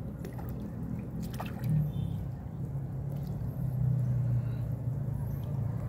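An engine running steadily with a low hum, with a few faint clicks about half a second and a second and a half in.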